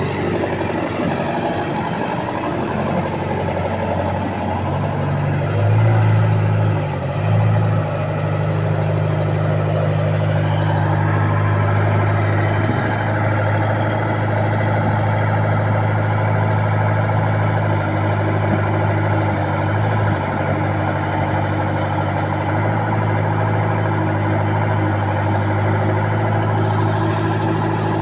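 Bobcat machine's engine running steadily at idle, with a brief rise in engine speed and loudness about six to eight seconds in.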